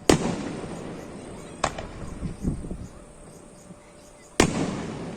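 Fireworks bursting: two loud booms, one just after the start and one about four seconds in, with a smaller bang and a few dull thuds between them. Each loud boom trails off over about a second.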